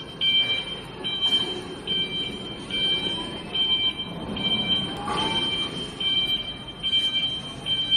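Electric reach-truck forklift's warning beeper sounding a steady beep a little more than once a second as the truck travels, over the low rumble of its drive.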